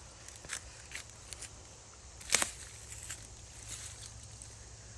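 Quiet woodland ambience: a faint steady chirring of insects, with scattered small rustles and clicks and one sharper click a little past two seconds in.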